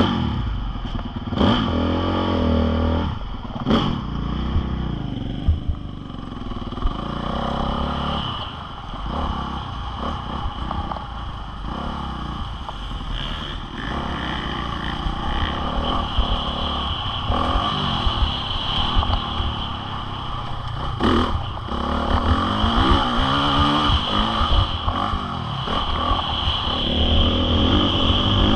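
Honda CRF450R single-cylinder four-stroke motocross bike being ridden, its engine revving up and down as the throttle opens and closes. A few sharp knocks come through, near the start and again partway through.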